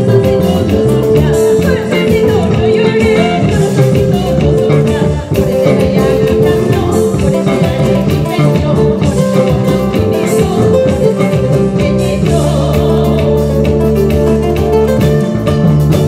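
Live band music, amplified: a woman singing into a microphone over nylon-string guitars, bass guitar and a drum kit keeping a steady beat.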